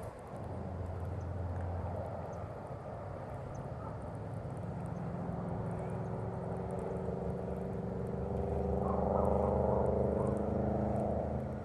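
A steady engine hum, swelling louder about eight seconds in and easing off near the end.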